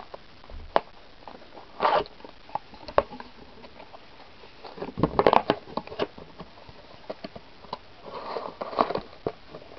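Cardboard booster box being opened by hand: scattered clicks and crinkles of the lid, flaps and paper insert, with the foil booster packs rustling. The loudest burst of crinkling comes about five seconds in, with another stretch of rustling near the end.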